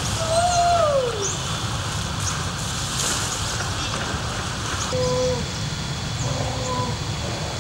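Steady low rumble of city traffic, with a single falling tone in the first second and three short held tones in the second half.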